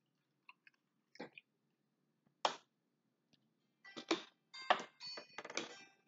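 Close-up chewing of fried fish: short, scattered crunchy and wet mouth sounds, coming thicker in the second half.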